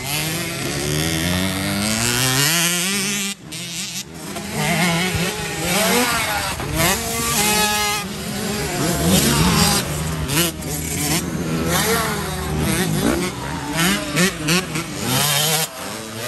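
Small 65cc two-stroke motocross engines, the Husqvarna TC65 among them, revving hard on a dirt track: the pitch climbs through each gear and drops back again and again. There are two abrupt breaks about three and a half and four seconds in.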